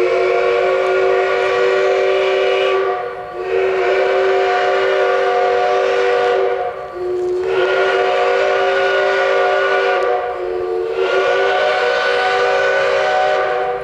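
Steam locomotive chime whistle sounding in four long blasts with only brief breaks between them, a chord of several notes over the hiss of escaping steam.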